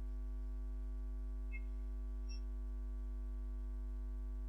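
Low, steady electrical mains hum in the sound system, with a couple of faint small ticks.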